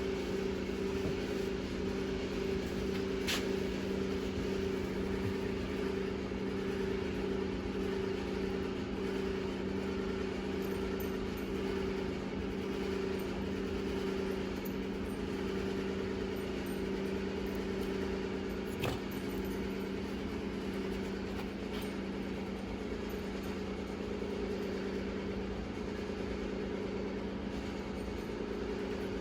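Steady mechanical hum with a constant pitch, with a couple of faint clicks, one a few seconds in and one near two-thirds through.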